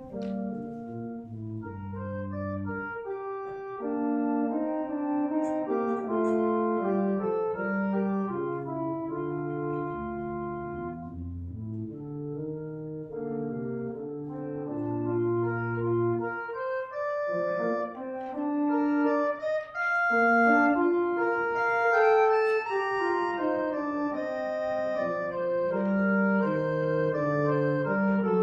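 Organ music: held chords over a slowly stepping bass line.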